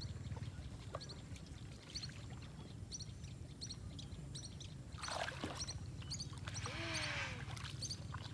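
Small birds chirping in quick pairs of high notes over and over, above a low steady rumble. About five seconds in, and louder around seven seconds, water splashes as a very small river catfish is hauled out of the water on a fishing line.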